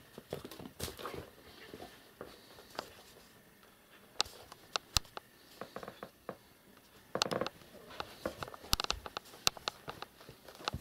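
Irregular taps, clicks and short scratchy rustles of cats' paws and claws moving about on a wooden floor and rug, with a denser scuffle of scratching about seven seconds in.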